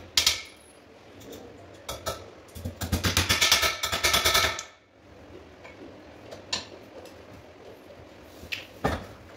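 Hammer tapping along the edge of an upturned sofa's steel-framed base: a few single knocks, then a quick run of light taps lasting about two seconds. Near the end come a couple of separate knocks as the sofa is tipped upright.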